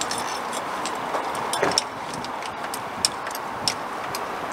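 Scattered light metallic clicks and clinks, irregular and of varying strength, over a steady background hiss.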